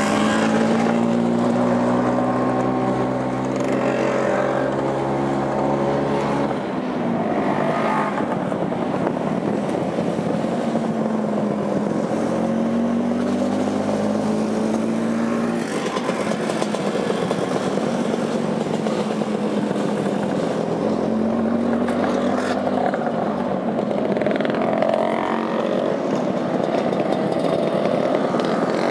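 Motor scooter engine running while ridden, its pitch rising and falling several times over a steady rumble of wind and road noise.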